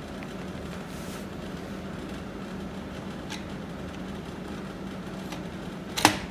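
Light metal clinks from the clutch assembly of a BMW K1200S motorcycle engine as it is worked loose by hand, over a steady background hum. Near the end comes one sharp, loud metallic clank.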